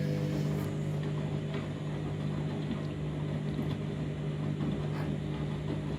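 Candy washing machine running with a steady low hum while its drum is full of foam in a suds lock.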